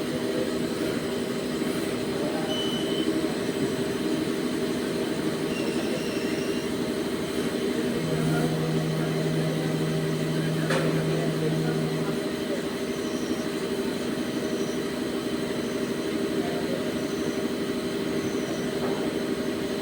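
CNC turning lathe running, a steady mechanical drone with several humming tones. A lower steady hum joins for about four seconds near the middle, and there is a single sharp click about eleven seconds in.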